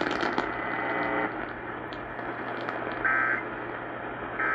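Emergency Alert System end-of-message data burst over AM radio: a short, buzzy two-tone digital warble about three seconds in, with the next identical burst starting right at the end, over steady radio hiss and hum.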